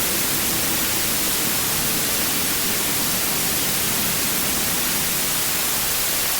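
Steady, unbroken static hiss, like a dead broadcast channel.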